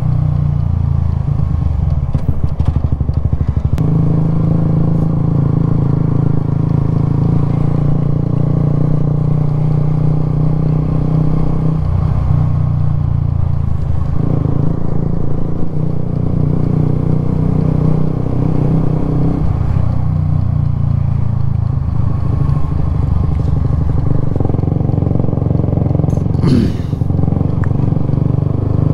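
Suzuki GSX-S125's small single-cylinder four-stroke engine running as the motorcycle rides at town speed, its note shifting every few seconds as the throttle and gears change. A brief scuffing noise comes near the end.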